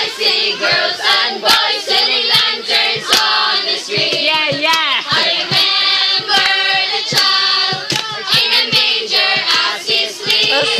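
A group of teenagers singing together loudly, with hand claps.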